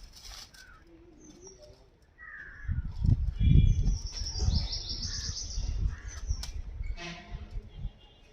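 Birds chirping in short high calls, with loud low thuds and rumble starting about two and a half seconds in.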